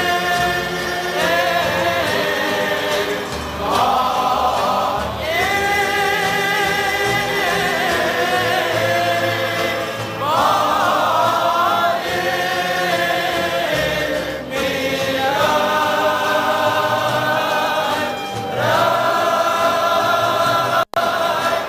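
Cape Malay male choir singing in full voice, with guitar, violin, cello and double bass accompanying. The voices hold long chords that shift every couple of seconds, and the sound cuts out for an instant near the end.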